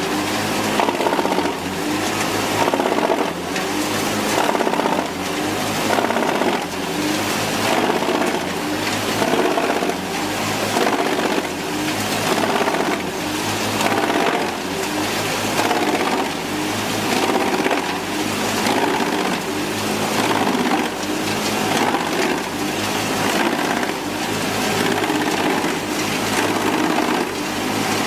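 Large industrial wood chipper running and shredding logs: a dense, loud mechanical rattle that surges at a regular rhythm about every second or two.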